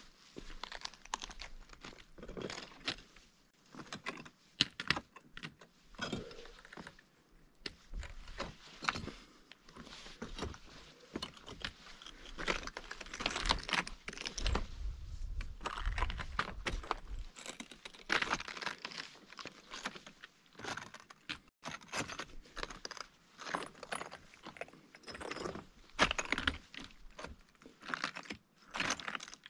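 Footsteps crunching over loose lava rock rubble, with irregular clinks and clatters of rock fragments shifting and knocking together underfoot.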